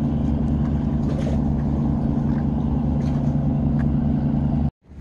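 A motor engine idling steadily with a low, even hum, cut off abruptly near the end.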